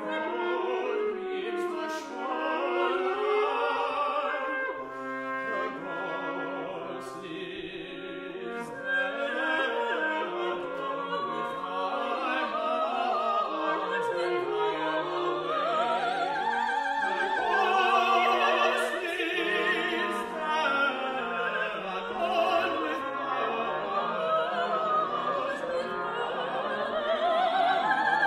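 Classical chamber music: a brass quintet of two trumpets, French horn, tenor trombone and bass trombone playing together with operatic singers, whose voices carry a wide vibrato. It grows louder toward the end.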